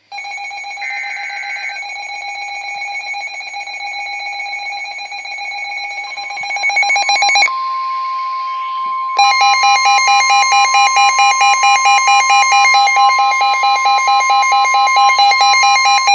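Midland NOAA weather radio sounding its emergency alert: a brief buzzy data burst, then a steady electronic alarm tone. About six seconds in a steady 1050 Hz weather-alert tone joins it, and from about nine seconds a louder alarm pulses rapidly over that tone until it cuts off.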